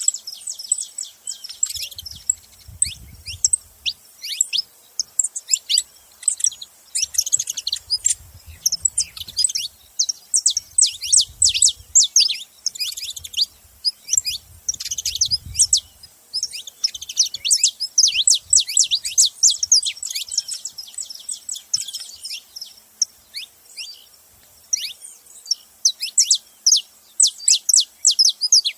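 Saffron finch chirping in quick, dense runs of short, high, downward-sliding chirps, bunched into spells with brief lulls between them.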